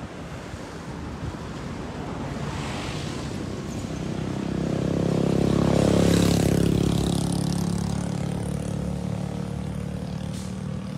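A motor vehicle passing on the road: engine and tyre noise grow louder, peak about six seconds in, then fade away.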